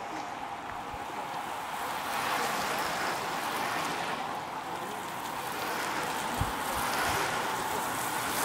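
Bicycle tyres hissing on wet asphalt as road cyclists ride past one after another, the hiss swelling as riders come close, about two seconds in and again near the end. A single short thump about six and a half seconds in.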